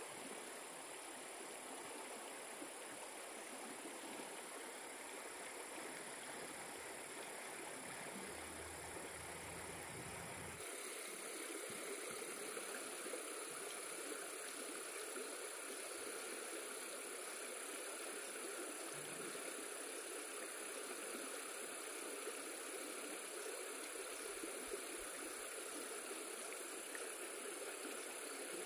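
Steady rush of stream water under a constant high drone of insects. The texture changes abruptly about ten seconds in.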